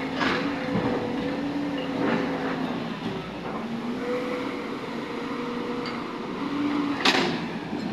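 JCB tracked excavator working: the diesel engine and hydraulics run steadily, the engine note rising and falling with the load, with sharp knocks as the bucket digs into rubble, the loudest about seven seconds in.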